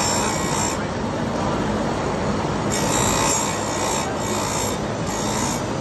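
Bench-mounted Oregon electric chain grinder running steadily while its wheel is dipped onto a saw chain's cutters in short grinding passes. Each pass brings a high grinding hiss of a second or less, several times over. It is touching up the cutting edges of a dulled chain at a 30-degree angle.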